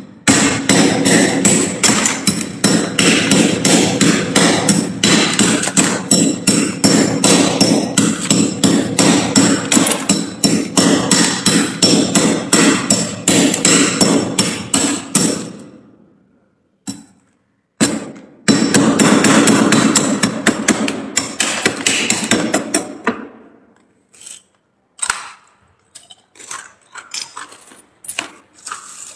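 Metal spatula scraping and chipping thick frost off a freezer's walls in fast, even strokes, about three a second. The scraping stops about fifteen seconds in, starts again for a few seconds, then gives way to scattered soft crunches and rustles of loose frost being handled in a plastic bag.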